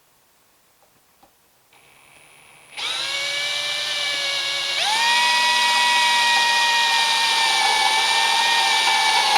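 Electric hand drill starting up about three seconds in, speeding up a couple of seconds later and then running steadily with a whine as it drills into the end of a sheared steel mower blade spindle shaft.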